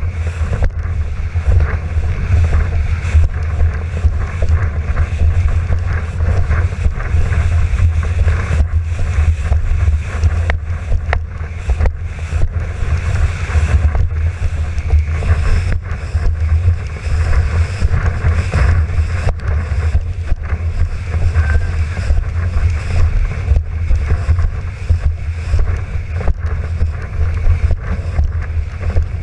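Heavy wind buffeting the microphone of an action camera on a windsurf mast, over a steady rush and splash of water as the board planes across choppy sea.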